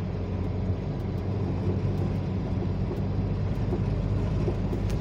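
Volkswagen truck's diesel engine running steadily while driving on the road, heard from inside the cab as a low hum mixed with road noise.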